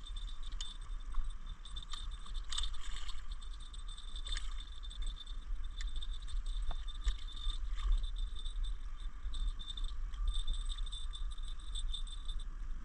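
Wind rumbling on the microphone, with scattered faint clicks and ticks from the fishing rod and reel as a carp is wound in to the bank.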